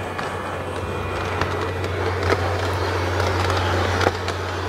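LGB G-scale model train rolling past on its track: a steady electric-motor hum with the wheels clicking over the rail joints, growing louder as it nears.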